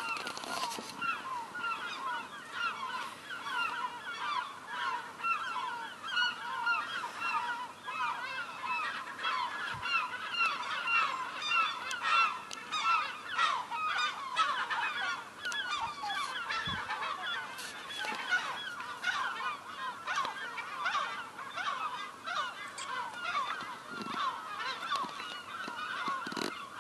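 A large flock of gulls calling all at once: many short, overlapping calls in a constant din, with no let-up.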